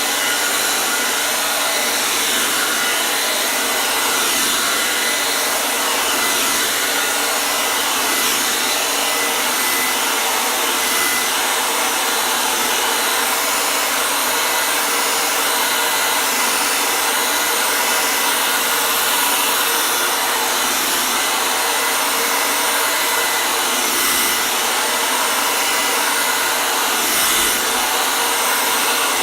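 Hair dryer running steadily, an even rushing blow of air with a faint motor whine, used as white noise.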